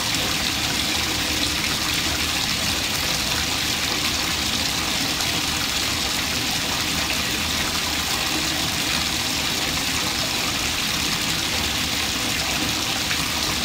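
Bathtub faucet running, its stream of water pouring into a foam-covered bath as the tub fills: a steady, unchanging splashing.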